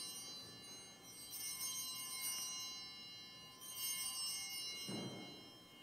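Altar bells rung at the elevation of the chalice after the consecration. A shimmering ring is fading at the start, then the bells ring again about a second in and once more at about three and a half seconds, each ring dying away slowly.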